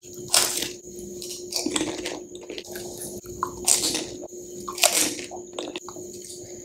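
Pani puri being eaten up close: crisp fried shells crunching as they are bitten, with wet chewing and squishing of the water-filled puris. Four sharp crunches come roughly one to two seconds apart, with a few smaller ones near the end.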